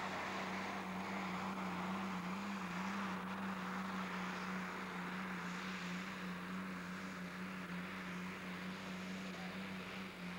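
Pulling tractor's diesel engine running flat out under full load as it drags the weight sled, a steady, slightly wavering high engine note.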